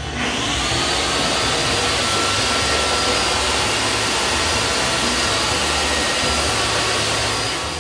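Countertop blender running at high speed, crushing ice with tequila and margarita mix. The motor winds up with a rising whine at the start, then runs steadily, dropping off near the end.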